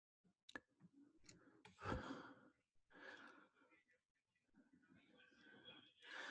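Faint breathing, a few soft exhales close to the microphone, with a few small clicks in the first seconds; otherwise near silence.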